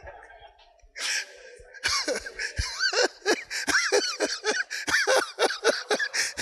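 A preacher's voice in rapid, short, emphatic syllables that come thick and fast from about two seconds in. It is preceded by a brief noisy burst about a second in.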